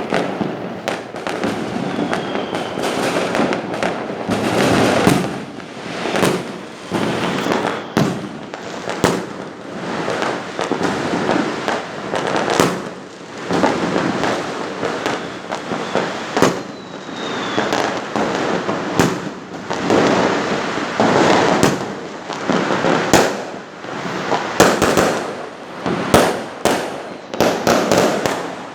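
Fireworks going off in a continuous barrage: rapid sharp bangs over steady crackling, with a couple of short falling whistles.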